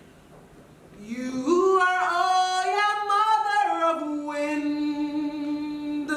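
A woman's voice singing unaccompanied: a phrase that starts about a second in and climbs in pitch, then settles into one long held note that runs to the end.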